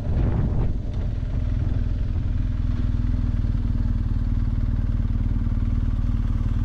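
BMW R 1250 GS Adventure's boxer-twin engine running steadily as the motorcycle is ridden, a low, even engine note.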